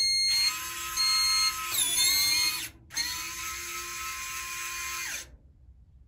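Electric motor of an automatic garage door lock whirring for about five seconds as it throws the lock, its pitch dipping about two seconds in and stopping briefly near the three-second mark. Two short electronic beeps sound at the start.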